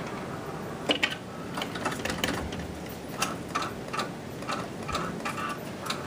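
Claw machine running as the claw travels and drops into the plush: a steady mechanical hum with a regular ticking, about two or three ticks a second from about two seconds in.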